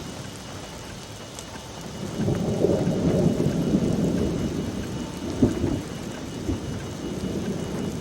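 Thunder rumbling from a supercell thunderstorm, swelling about two seconds in and rolling on, with one sharper crack about halfway through.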